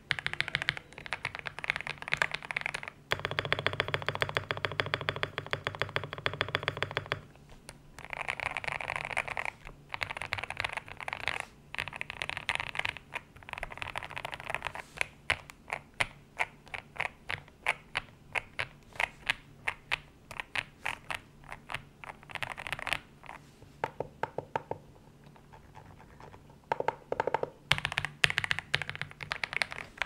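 Typing on a GMK67 mechanical keyboard with KTT Kang White linear switches, GMK Noel clone keycaps, Krytox 205g0-lubed plate-mount stabilizers, case foam and a three-layer tempest tape mod. Keystrokes come in bursts: a dense run of rapid presses a few seconds in, then slower single key presses, with a short pause near the end.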